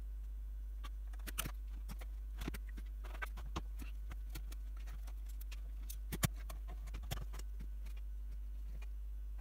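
Scattered small clicks and taps of hand tools, screws and a circuit board being handled against a metal chassis, the sharpest knock about six seconds in, over a steady low hum.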